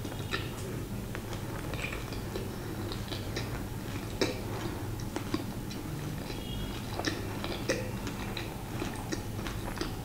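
A person chewing food close to the microphone with the mouth closed: irregular soft, wet mouth clicks and smacks over a steady low hum.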